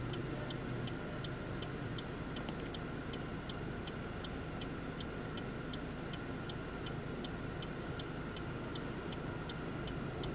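A car's turn-signal indicator ticking evenly, about three clicks a second, over the steady hum of the engine and road noise inside the moving car.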